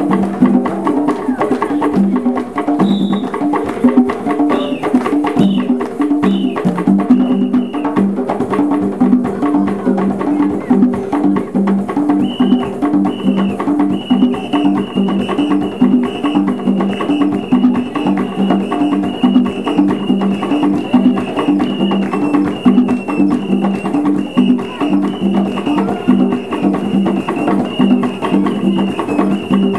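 A group of East African hand drums played live in a steady, fast interlocking rhythm. A high repeated note joins in about twelve seconds in.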